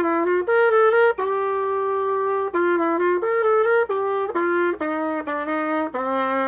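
Trumpet playing a melody of separate notes, mostly short, with one longer held note from about a second in.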